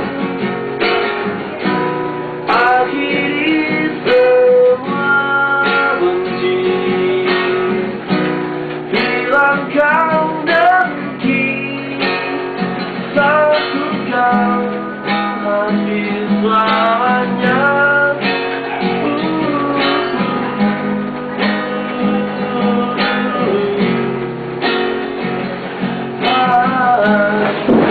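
Acoustic guitar strummed, with a man singing a slow melody over it.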